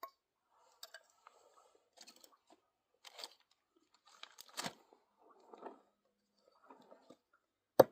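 Kindling being split: scattered crunching and cracking of wood fibres giving way, then one sharp loud chop near the end.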